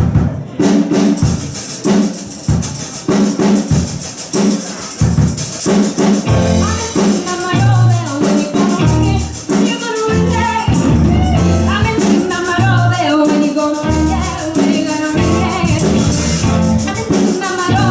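Rock song with a steady, even beat of percussion and instruments. A singing voice comes in about five or six seconds in and carries on over the beat.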